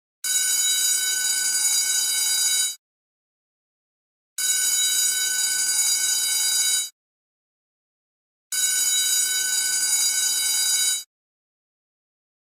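School bell ringing in three bursts of about two and a half seconds each, with about a second and a half of silence between them.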